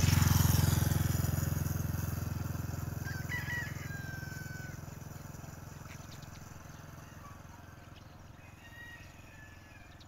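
A motor vehicle's engine hum, loudest at the start as it passes and then fading away over several seconds. A rooster crows faintly about three seconds in and again near the end.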